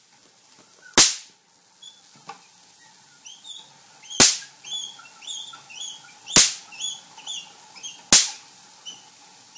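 Four loud, sharp cracks of electric spark discharge from a homemade plasma device, a few seconds apart and each dying away quickly, with a couple of small clicks between the first two.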